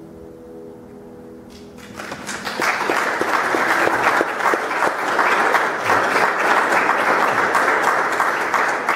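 A grand piano's last chord rings on and fades away. Then an audience starts applauding about two seconds in, swelling quickly and carrying on steadily.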